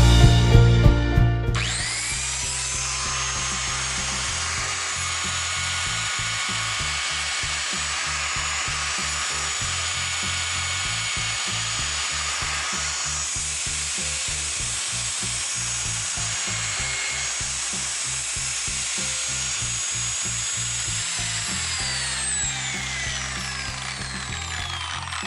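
Bass Polska BP-4763 electric wood router running at high speed with a steady whine, which starts abruptly about a second and a half in. Near the end it is switched off, and its pitch falls as the motor spins down.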